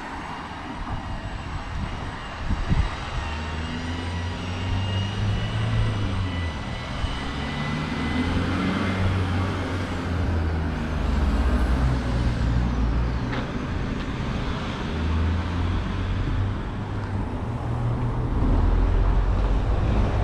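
Outdoor street ambience: an uneven low rumble with faint distant traffic.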